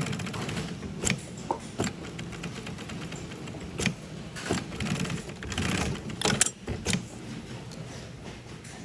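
Sewing machine stitching in short bursts, with sharp clicks between the runs, as hook and loop is sewn onto nylon with back tacks.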